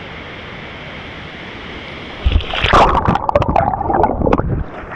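Steady rush of flowing water, then a little over two seconds in a sudden loud burst of splashing and gurgling water that lasts about two seconds.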